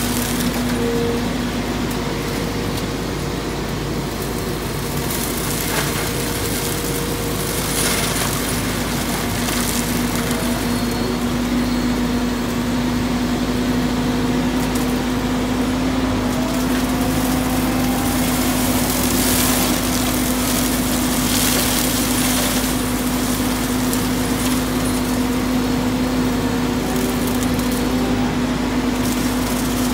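Hydraulic brush mulcher on a Volvo wheeled excavator's boom, running at a steady hum while it chews through brush and small trees, with scattered sharp cracks of splintering wood.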